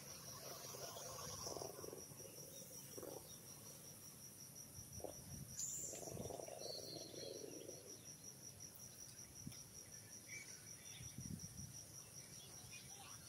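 Insects trilling steadily, a fast even high-pitched pulsing, with a few soft, indistinct lower sounds about a second in and around six seconds in.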